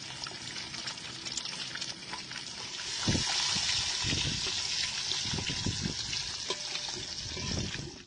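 Boiled eggs frying in hot oil in a large metal wok: a steady crackling sizzle. About three seconds in the sizzle grows louder and a metal spatula scrapes and knocks against the pan as the eggs are turned.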